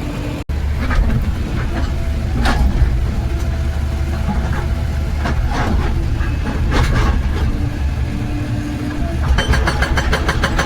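Excavator's diesel engine running hard under load, with scattered knocks of rock being broken. About nine seconds in, the hydraulic rock breaker starts hammering fast and evenly, about six or seven blows a second.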